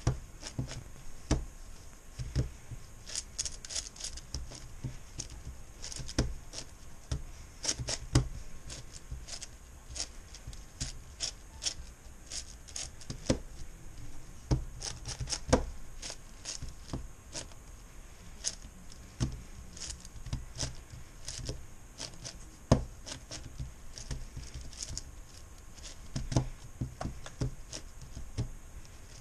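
Plastic pieces of a MoYu Meilong 10x10x10 Rubik's cube clicking and rubbing as its slices are turned one-handed while the centers are built. The clicks are sharp and irregular, a few a second, some much louder than others, with softer sliding between them.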